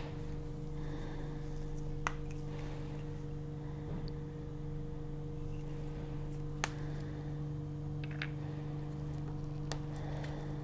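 Steady low electrical hum with a few short, sharp plastic clicks from a micropipette and its tips being handled.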